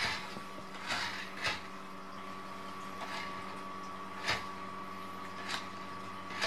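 A handful of brief scuffs or swishes at irregular intervals, about five in all, over a steady electrical hum.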